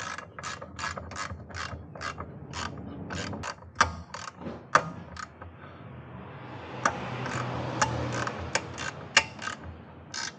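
Hand ratchet wrench clicking in a run of sharp clicks, about two to three a second, with a broader rasp swelling under the clicks in the second half.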